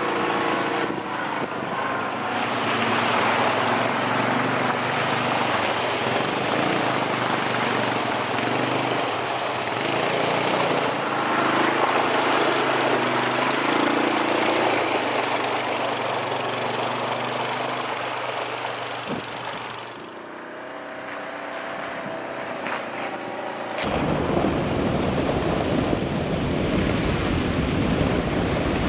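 ATV engine running under way, its pitch rising and falling with the throttle. About 24 s in the sound cuts to a dull, heavy rumble of wind buffeting the microphone.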